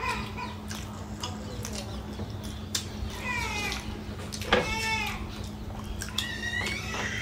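An animal's high, drawn-out cries, three times, each bending up and down in pitch, with a few light clicks and a steady low hum underneath.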